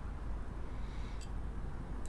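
Honda FTR223 clutch basket worked by hand, giving a faint single click a little over a second in as the riveted drive gear shifts against the basket: the click of a basket with play, worth replacing. A low steady hum runs underneath.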